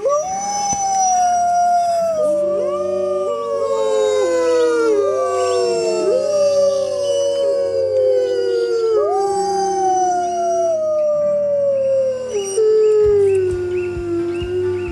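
A pack of wolves howling in chorus: several long howls overlap, each sliding slowly down in pitch, with new voices joining in at a higher pitch throughout.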